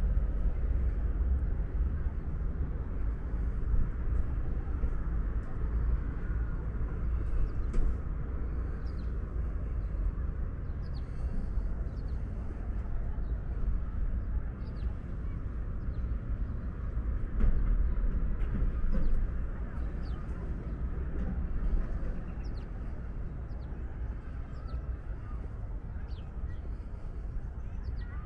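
Outdoor city ambience: a steady low rumble with scattered short, high bird chirps throughout.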